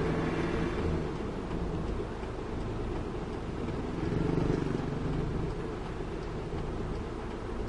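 Heavy diesel dump trucks running past on the road, a steady low engine drone that swells about four seconds in as one truck passes close.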